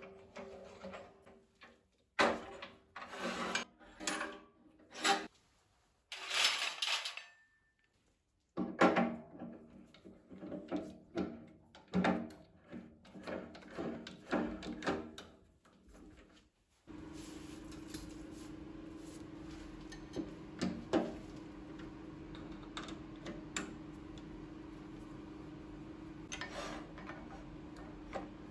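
Clunks, clicks and rattles of wood and metal as a workpiece is taken off a wood lathe and a four-jaw chuck is fitted onto the headstock spindle, coming in irregular bursts. Partway through a steady low hum sets in and carries on, with a few faint knocks over it.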